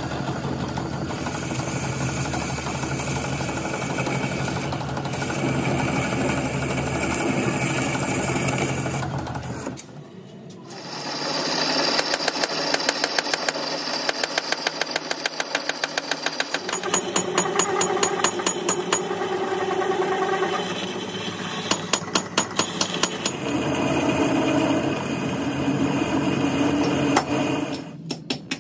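Metal lathe running while a single-point tool cuts and bores a steel plate. About ten seconds in the sound drops briefly, then carries on with a fast, even clicking.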